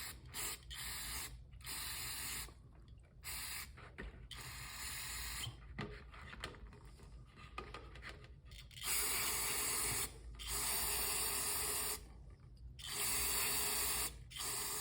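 Aerosol can of carb and parts cleaner hissing in repeated bursts as it is sprayed into the passages of a Honda S2000's rotary air control valve to flush out the buildup behind a rough idle. There are several short bursts at first, then three longer ones of about a second and a half each in the second half.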